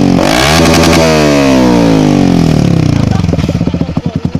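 Yamaha R15's single-cylinder engine through a very loud aftermarket exhaust. It is blipped once just after the start, revs back down over a few seconds, then settles to a lumpy idle with separate exhaust pulses about ten a second.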